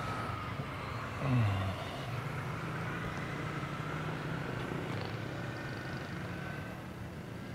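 Low, steady engine hum with a brief falling whine about a second in.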